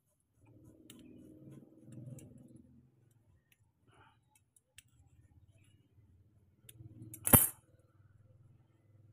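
Pliers working on a scooter starter motor's end cap and brush holder: faint handling and scraping noise, then one sharp metallic snap about seven seconds in, the loudest sound. A faint low hum runs underneath.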